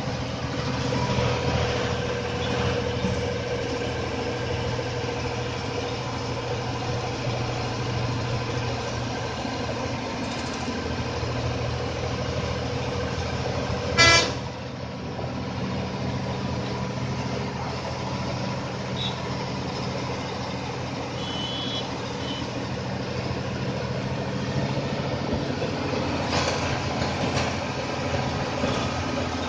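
A bus engine runs steadily, heard from inside the passenger cabin. About halfway through there is one short, loud horn toot.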